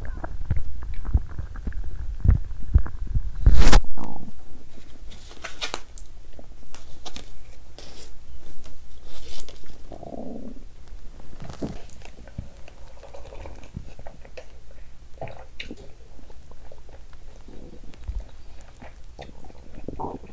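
A woman's stomach growling and gurgling, with dense low rumbling over the first few seconds and a gurgle about ten seconds in. A loud knock comes about three and a half seconds in, followed by scattered small clicks and rustles.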